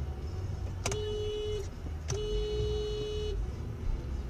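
Car horn sounding twice, a short blast and then a longer one, at a white SUV cutting in from the next lane, over steady low road rumble.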